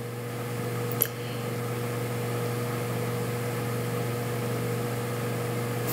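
A steady low mechanical hum with a fainter higher tone running over it, and one light click about a second in.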